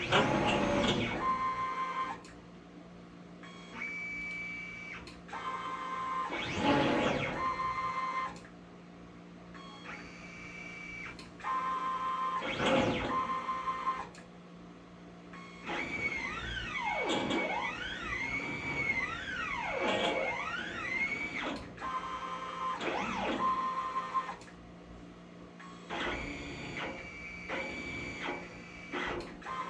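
Stepper motors of a CNC plasma table driving the gantry through a test program: a series of moves, each a pitched electronic whine that starts and stops, some held at a steady pitch. Midway, the pitch sweeps up and down several times in a row as the axes trace curves, all over a steady low hum.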